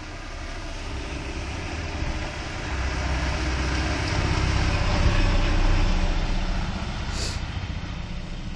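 Diesel engine of a box lorry passing close by on a slushy road, the rumble and tyre noise swelling to a peak about five seconds in and then fading away. A short high hiss about seven seconds in.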